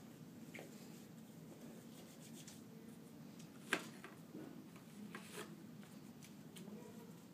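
Faint rubbing of hands together during hand hygiene, with scattered small clicks and one sharp click a little over halfway through.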